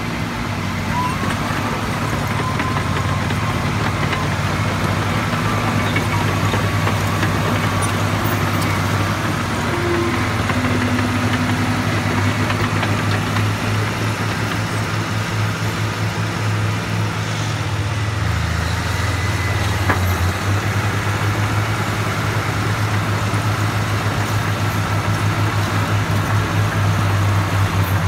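Diesel engine of a Caterpillar crawler machine running steadily while working, its pitch dropping and then rising again about two-thirds of the way through.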